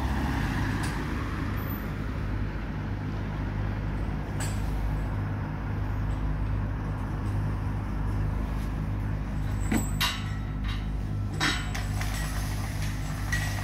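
An engine running steadily with a low hum, and a few metallic clanks about ten seconds in and again a second and a half later as temporary mesh fence gates are moved shut.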